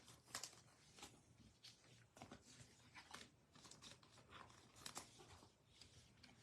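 Faint crinkling and rustling of trading-card pack wrappers and cards being handled, in scattered soft clicks and crackles.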